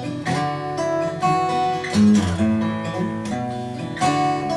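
Acoustic guitar playing: plucked and strummed chords with the notes left ringing, fresh strokes about two and four seconds in.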